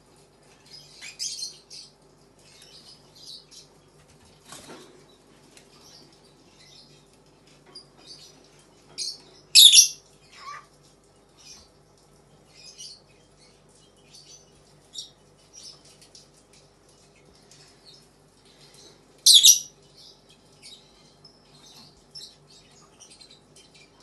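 Two pet cockatiels squabbling: many short high chirps and chatter throughout, with two loud sharp shrieks, one about ten seconds in and one near twenty seconds in.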